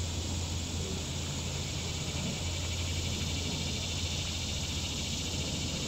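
Steady chorus of insects in the summer trees, a dense high hiss that does not change, over a low steady hum.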